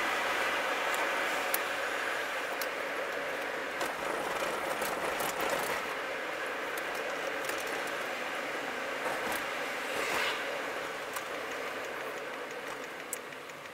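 Steady road and engine noise heard from inside a moving vehicle, with occasional sharp ticks and rattles. It grows quieter toward the end.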